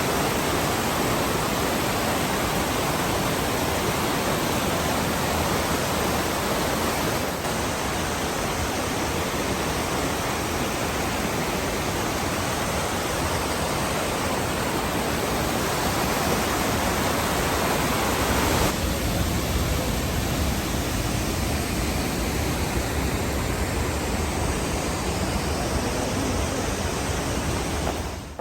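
Waterfall, a steady, full rush of falling water.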